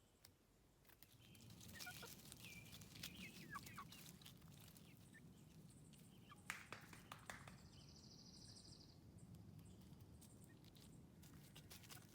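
Young chickens giving short, soft chirping calls, over a low steady rumble with scattered clicks. A faint buzzy trill runs for about a second and a half midway.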